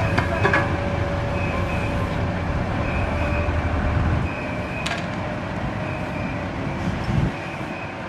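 Construction-site engine running with a steady low rumble that eases off about halfway through, over a faint repeating high-pitched beeping and a few sharp clicks.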